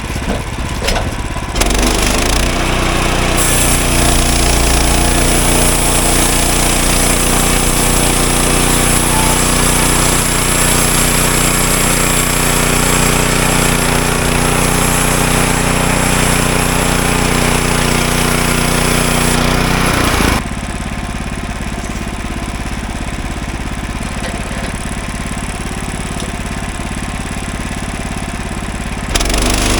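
Gasoline engine of a Woodland Mills HM126 portable bandsaw sawmill running steadily, rising in level about two seconds in. The sound changes abruptly about twenty seconds in.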